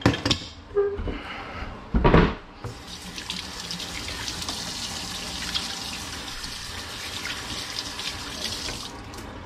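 A few knocks at the sink, the loudest about two seconds in, then a kitchen faucet turned on, running steadily into a stainless steel sink as hands are rinsed under it, and shut off near the end.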